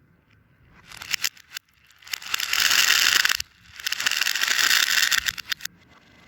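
Crackling, crunching noise from a fidget toy being handled, in two bursts of about one and a half to two seconds each, with a few sharp clicks just before them.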